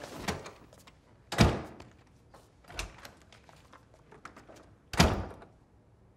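A wooden door being handled: light clicks of the latch and handle, and two heavy thuds, about a second and a half in and about five seconds in, with a softer knock between them.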